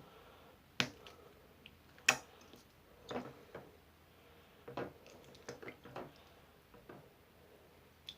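Slime being handled, making irregular sticky clicks and small pops, with two sharper pops about one and two seconds in.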